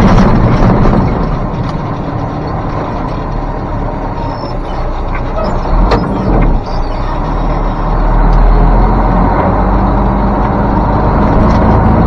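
Dump truck's diesel engine running under load, heard from inside the cab as the truck pulls away in gear; it grows louder again about eight seconds in. A single knock about six seconds in.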